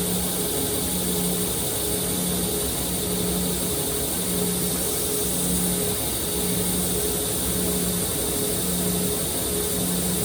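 A powered grinder running steadily as a Shun chef knife is ground and thinned, with a steady high hiss and a low hum that comes and goes about once a second.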